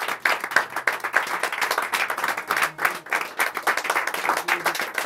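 Audience applauding: many hands clapping at an even level.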